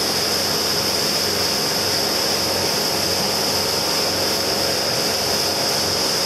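Motorboat running at speed: a steady engine drone mixed with the rush of water churned up in its wake.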